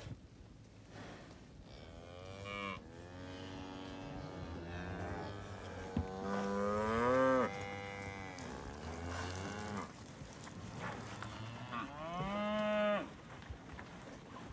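Cattle mooing as a herd moves through a pen: about five long moos from several animals, some overlapping, the loudest about seven seconds in and another loud one near the end.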